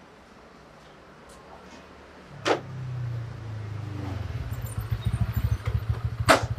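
A small motorbike engine starts up about two seconds in and runs with a fast, even pulsing beat that grows louder. Two sharp knocks cut through it, the louder one near the end.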